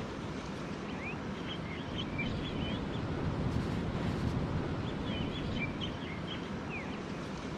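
Steady outdoor background noise of wind and water, with a small bird chirping in two short runs, about a second in and again around five and a half seconds in.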